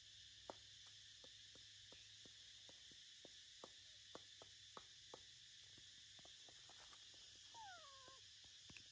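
Very quiet: a baby macaque gives one short whimper that falls in pitch near the end, over faint scattered clicks and a steady high hiss.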